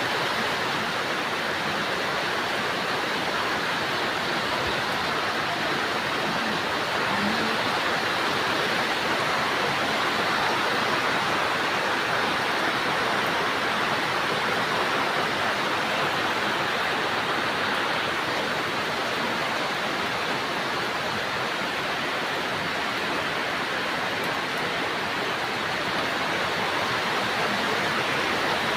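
Heavy rain pouring down, a steady unbroken hiss.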